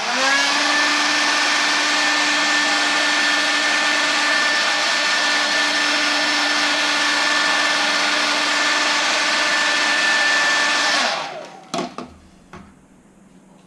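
Handheld electric heat gun switched on, its fan spinning up to a steady whine over rushing air, heating vinyl wrap to soften and stretch it. It runs for about eleven seconds, then is switched off and winds down, followed by a few light knocks.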